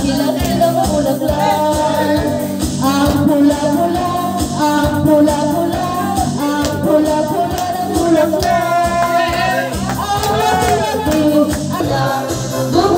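Background music: a song with a singing voice over a steady bass and drum beat.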